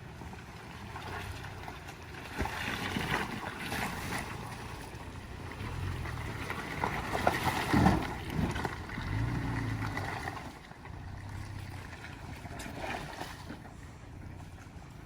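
Toyota Tacoma pickup's engine running at low revs off-road, getting louder in the middle and easing off again, with wind noise on the microphone.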